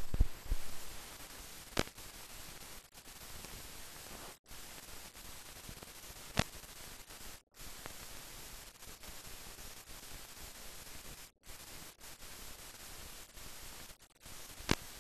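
Steady hiss of a silent film soundtrack transfer, with a few sharp clicks and pops and several brief drop-outs to silence.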